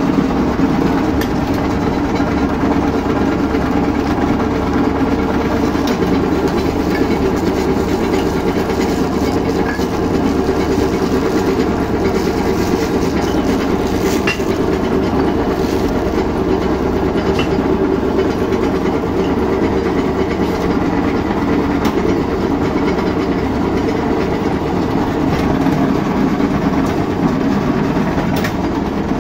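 Steady mechanical drone of running machinery, with occasional light clicks.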